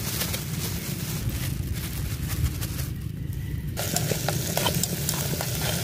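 Chopped tomatoes sizzling as they go into a pot of hot oil with garlic, shallots and chili, then a wooden stick stirring them, with light taps and scrapes against the pot from about four seconds in.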